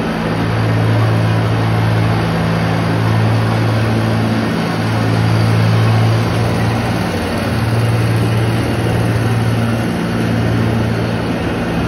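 Ice resurfacing machine running with a steady low hum.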